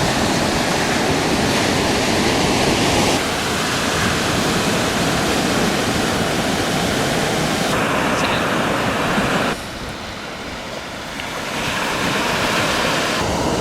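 Steady rushing noise with no pitch to it, changing abruptly in level and tone several times, with a quieter stretch about two-thirds of the way through.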